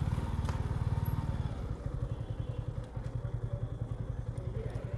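Motorcycle engine idling with an even, low throb.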